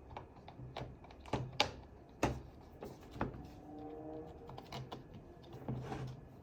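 Irregular clicks, taps and a few sharper knocks of hard plastic and metal parts being handled and worked on an airsoft M4 rifle by hand.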